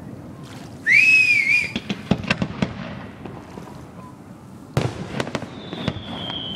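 Aerial fireworks going off: a short wavering whistle about a second in, then a quick string of sharp cracks. A loud bang comes a little before five seconds, followed by more cracks and a long whistle slowly falling in pitch.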